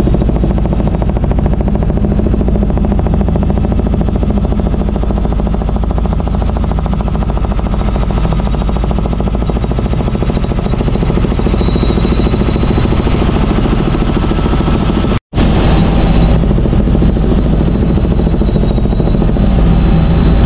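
Helicopter heard from on board: rotor blades chopping in a fast, even pulse over a steady engine drone with a thin high whine, loud and unbroken. The sound drops out for an instant about fifteen seconds in, then resumes.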